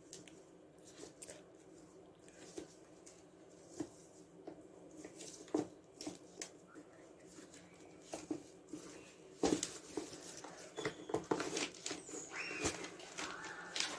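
Hands handling a black leather winter boot on newspaper: laces being worked and pulled, then the boot turned over onto its side. Scattered small clicks, rustles and creaks, denser and louder in the second half.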